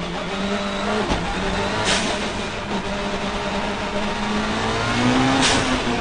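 Time attack race car's engine heard from inside the stripped cockpit under hard running on track, its pitch shifting through the gears. There is a sharp click about a second in, the revs climb before the end, and two short bursts of hiss come about two seconds in and just before the end.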